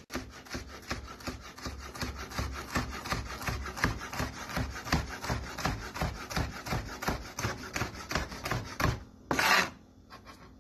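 Knife slicing vegetables on a cutting board: quick repeated cuts at about four to five strokes a second, then a louder half-second scrape near the end.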